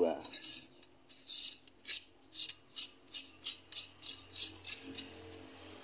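Glass incandescent bulb being twisted into its screw lamp socket: a run of short scratchy clicks, about three or four a second, as the metal base turns in the socket threads. It starts about a second in and stops about a second before the end.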